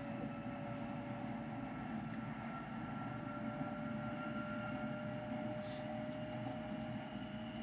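Cabin noise of a Hokuriku Shinkansen Hakutaka train running at speed, heard inside the car: a steady low rumble with a whine that rises slightly in pitch.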